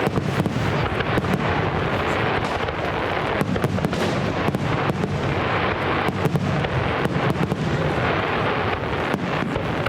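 Fireworks going off in rapid succession: a dense, unbroken run of bangs and crackling pops.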